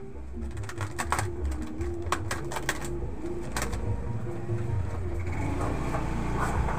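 Scattered clicks and knocks of packaged shop goods and plastic bottles being handled and moved while shelves are restocked, over a low rumble of movement.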